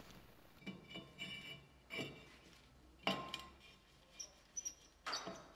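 Faint, scattered metallic clinks and scrapes, about seven or eight, as a steel brake rotor is handled and seated over the wheel studs on the front hub.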